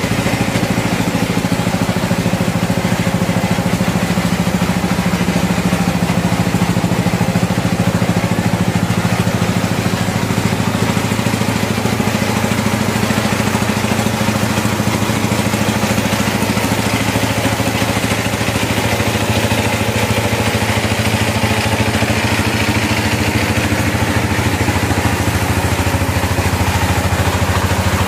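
An engine or motor running steadily at an unchanging speed, a constant low hum.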